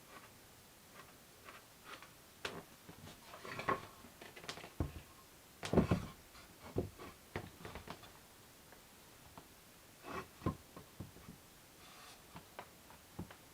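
Scattered light knocks, taps and clicks of objects being handled and set down, with a louder thump about six seconds in.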